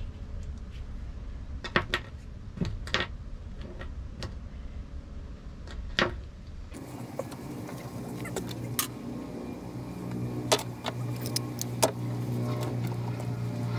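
Light clicks and clinks of small metal fishing tackle, such as a hook and split ring, being handled and set down on a wooden table, over a low rumble. About halfway through, the background abruptly changes to a steady low hum, and the scattered clicks continue over it.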